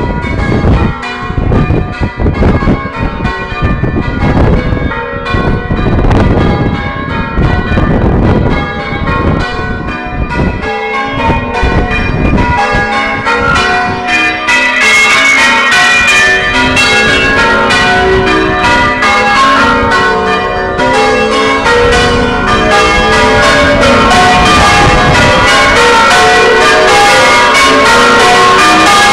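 Ring of six church bells (12 cwt) being rung in changes, one bell after another in a steady stream of strikes. For the first twelve seconds or so, low wind buffeting on the microphone partly covers them. From about halfway the bells are loud and clear.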